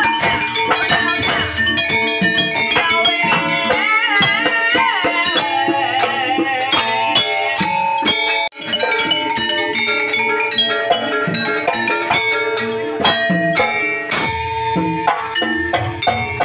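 Live jaranan ensemble music: drumming and struck gong-chime tones under a wavering high melody line, with rattling percussion. The sound cuts out for an instant about eight and a half seconds in.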